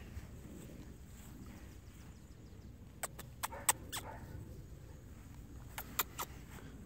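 A few sharp clicks in two quick clusters, about three seconds in and again near the end, over a quiet, steady low rumble.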